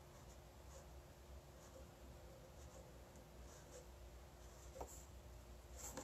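Faint scratching and ticking of a beading needle scooping seed beads off a felt bead mat, with a couple of small clicks near the end.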